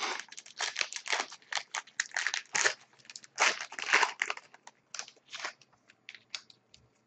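Hockey card pack wrapper crinkling and tearing as it is opened by hand: a dense run of rustles that thins out to a few scattered ones near the end.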